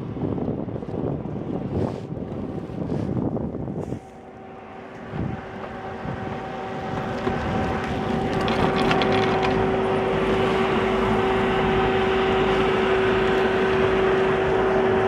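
Wind buffeting and rustling on the microphone for a few seconds, then a steady mechanical hum with a constant drone that grows louder over several seconds and holds at that level.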